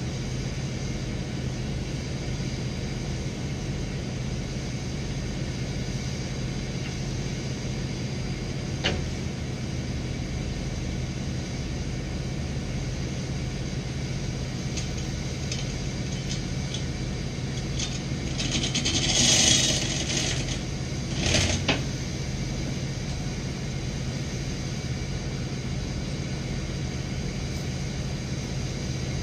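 1996 bucket truck's engine running steadily with a low drone. There is a sharp click about nine seconds in and a loud burst of hiss about two-thirds of the way through, followed by a short knock.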